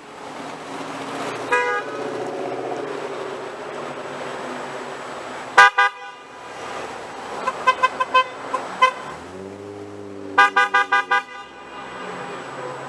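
Passing car horns honking in answer to a protest sign that asks drivers to honk. A short toot, then a loud blast about five seconds in, a rapid string of quick beeps, a longer lower horn, and another rapid string of beeps, over steady traffic.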